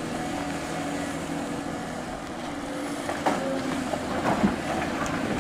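Hydraulic excavator's diesel engine running steadily. From about three seconds in, its bucket tips dirt and rocks into a steel dump trailer with several thuds and clatters.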